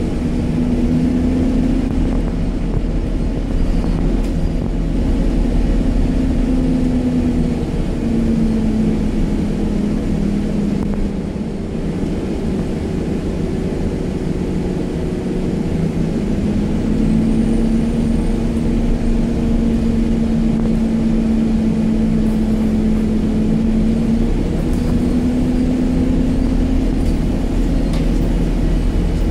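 Interior of an Alexander Dennis Enviro 200 MMC single-deck bus on the move: the diesel engine and driveline drone steadily over road and tyre rumble. The pitch of the drone rises and falls a few times as the bus speeds up and slows.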